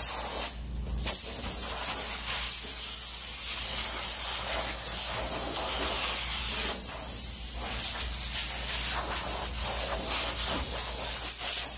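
A steady hiss of a sprayer jetting a rinse solution onto a car's door panel and jambs, with short breaks about half a second in and again around seven seconds.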